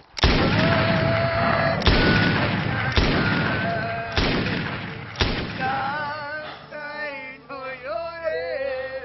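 Five handgun shots, about a second apart, each ringing out with a long echo. Near the end, music with a singing voice comes in.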